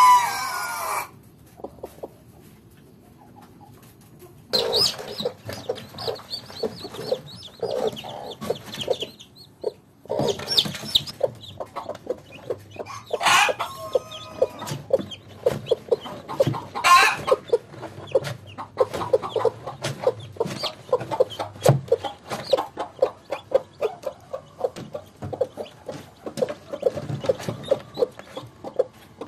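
Chickens clucking in many short repeated notes, several a second, with louder squawk-like calls about 13 and 17 seconds in. A rooster's crow ends about a second in. The hen is a broody Swedish Flower hen sitting on newly hatched chicks.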